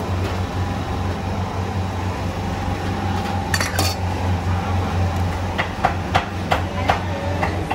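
Ceramic soup bowls and spoons knocking and clinking against a stainless-steel counter as bowls are handled and set down. A sharp clatter comes about three and a half seconds in, then a quick run of knocks near the end, all over a steady low hum.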